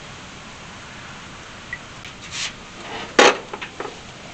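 A short scrape, then a sharp clack and two or three lighter knocks as a cast-metal brake master cylinder is handled and set against the car's firewall mounting.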